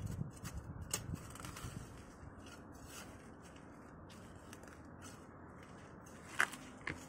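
Weeds being pulled up by hand: rustling and tearing of stems and leaves, busiest in the first two seconds and quieter after. There is a sharp click about six and a half seconds in, and a smaller one just after.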